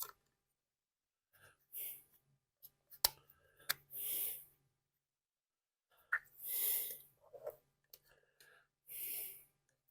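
Soft breaths close to the microphone, about every two and a half seconds, with a few sharp clicks of small parts being handled.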